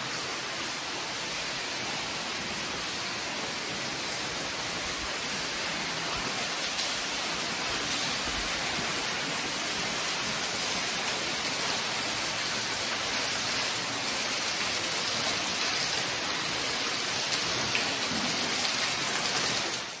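Steady rush of running water from an underground cave stream, an even hiss that grows a little louder toward the end and then cuts off suddenly.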